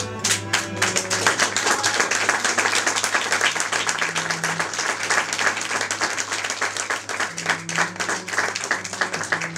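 Audience applause over soft background music; the clapping grows dense in the first second and thins to scattered claps near the end.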